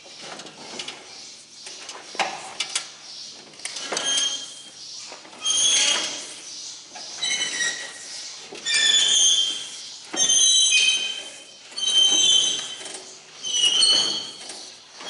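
Hand lever grease gun being pumped into a baler's grease fittings: a few clinks and knocks as it is put on a fitting, then a steady run of pump strokes about every one and a half seconds, each with a high squeak.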